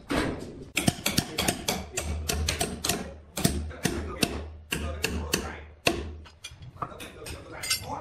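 Rapid, irregular clattering and knocking, several sharp knocks a second, with a low hum under it in the middle few seconds.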